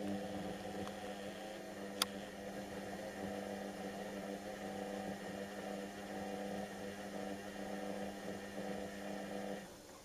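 Whirlpool washing machine on a 60 °C cotton whites wash, running with a steady motor hum for about ten seconds before it stops near the end. There is one sharp click about two seconds in.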